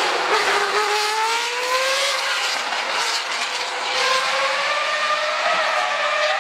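Judd V8 racing engine of the BMW 134 Judd at high revs, its pitch climbing steadily, easing off and dipping a little around two to three seconds in, then climbing again.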